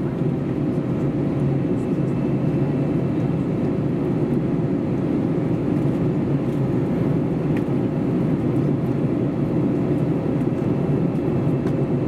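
Steady cabin drone inside an Airbus A321neo: engine and airflow noise, even and unbroken, with a faint steady hum running through it.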